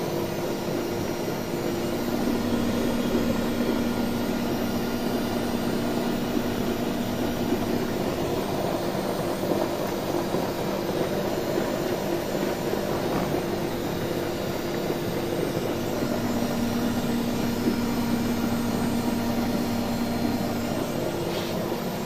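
Front-loading washing machine running through its drain and spin, a steady mechanical whoosh with a low hum that weakens a little midway and then comes back.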